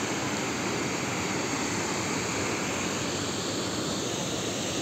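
Steady rush of water pouring over the steps of a low river dam.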